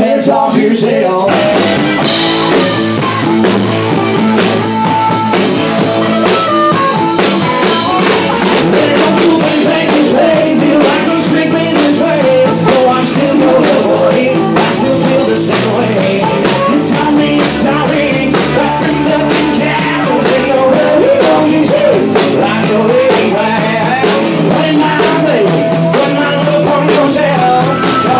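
A live blues-rock band playing loud: electric guitar, bass and drum kit, with a harmonica playing over them. The full band with drums comes in about a second in.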